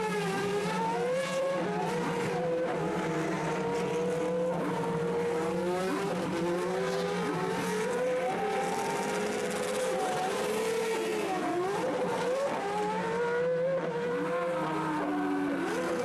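Several Formula Renault 3.5 single-seaters' V8 engines revving as the cars pull away down the pit lane. Their pitches rise and fall and overlap one another, over a steady low hum.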